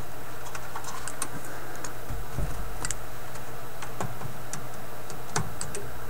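Scattered small clicks and taps of pliers and component leads against a tube radio's metal chassis as a replacement filter capacitor is worked into position, over a steady low hum.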